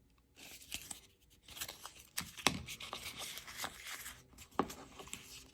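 Handling noise from a small Gerber folding utility knife being clipped on for carrying: rustling of fabric with scattered light clicks and taps, a few sharper ones about two seconds in and again near the end.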